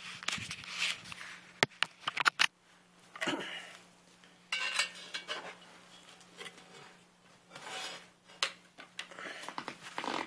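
Metal tongs clinking and scraping against a Dutch oven as a baked loaf is lifted out, with scattered sharp metallic clicks.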